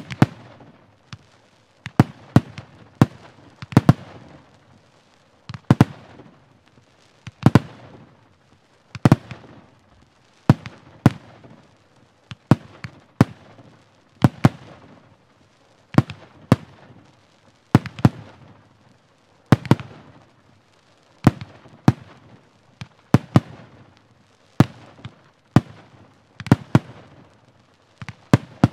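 Two Phantom Cloud 48 mm fireworks firing together: an irregular run of sharp bangs, roughly one to two a second, each with a short fading tail.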